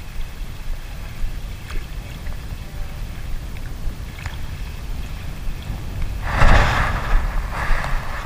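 Wind buffeting the microphone over choppy sea water, with small waves lapping against the boat. About six seconds in, two louder splashing washes of water come a second apart.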